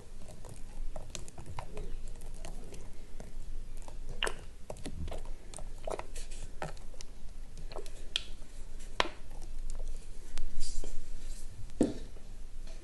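Light pattering with scattered small clicks and crackles on a tray of reformed gym chalk slabs as coloured powder is added to them, with a denser hiss about ten and a half seconds in.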